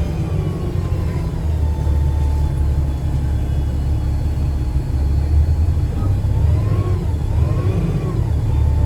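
A 2009 Gillig BRT 40-foot transit bus with a Voith transmission, heard from on board. Its drivetrain makes a steady low drone, and over it a thin whine rises and falls twice about six to eight seconds in.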